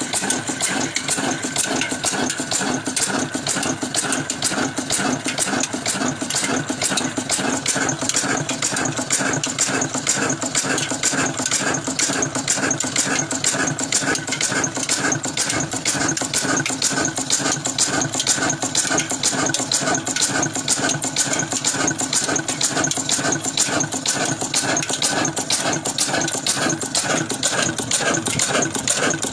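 Old desi stationary diesel engine running steadily, an even, rapid mechanical beat that holds constant throughout.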